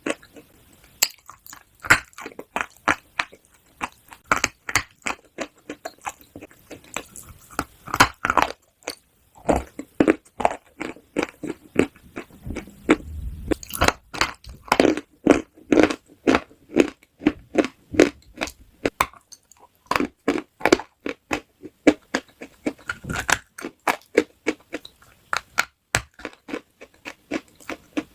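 Close-miked crunchy food being bitten and chewed: many sharp, irregular crunches in quick runs, with short pauses between mouthfuls.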